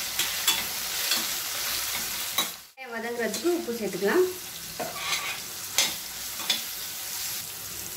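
Sliced onions, green chillies and curry leaves sizzling in hot oil in a stainless steel pressure cooker while a metal slotted spatula stirs them, scraping and clicking against the pan. The sizzle cuts out briefly near the middle.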